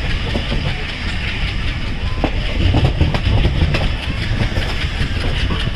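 Passenger train coach running along the track: a steady low rumble of wheels on rail with many sharp clicks and rattles, swelling a little around the middle.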